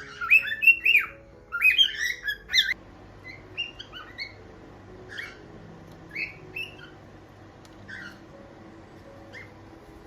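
Cockatiels calling: a quick run of loud chirping calls in the first three seconds, then softer single calls every second or so.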